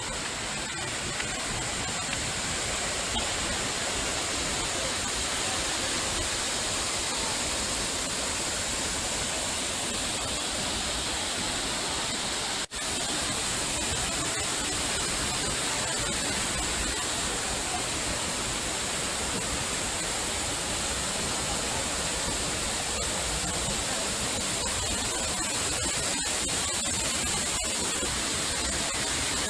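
Waterfall: the steady, even rush of falling water, dropping out for a moment about halfway through.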